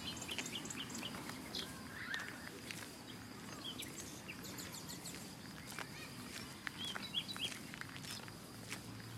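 Outdoor ambience of small birds chirping in short, scattered calls over a low steady background, with occasional sharp clicks.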